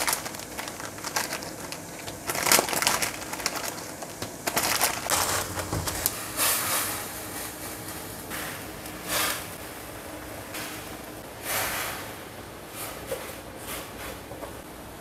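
Plastic instant-noodle packet crinkling as the dry noodle block is crushed inside it by hand. Later the noodles are in a wok of boiling water and are stirred with wooden chopsticks, in irregular bursts of noise.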